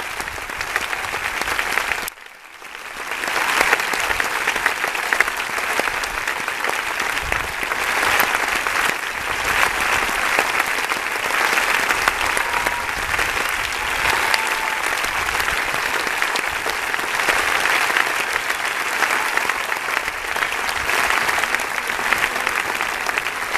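Large audience applauding, a steady dense clapping. About two seconds in the sound briefly drops away and swells back up.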